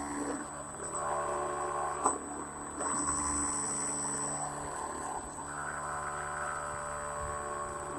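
Remote-control boat's airplane-type electric motor and propeller whining, its pitch stepping up and down as the throttle changes, with a sharp click about two seconds in.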